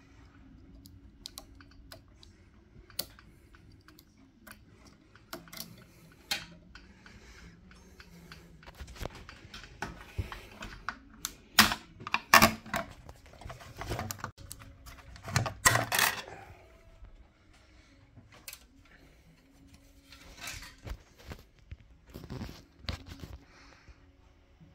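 Clicks, knocks and rattles of a fluorescent light fitting's metal gear tray and housing being handled overhead. The sharpest, loudest knocks cluster in the middle, with a few more near the end.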